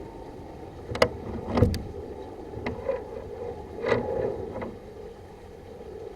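Several sharp clicks and knocks, the loudest about a second in, as a stiff, worn collar on a drain inspection camera is worked forward, over a steady hum.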